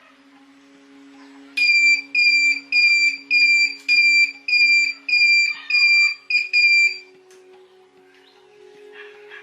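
Electronic beeper sounding a rapid series of about a dozen high, even beeps, roughly two a second. It starts about a second and a half in and stops after about five seconds.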